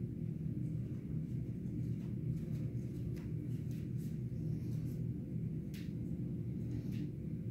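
A steady low hum made of several even tones, with a few faint light clicks.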